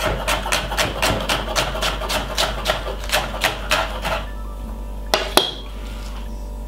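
Chef's knife rapidly chopping red onion on a wooden chopping board, about four to five cuts a second, stopping after about four seconds. Two louder knocks follow about a second later.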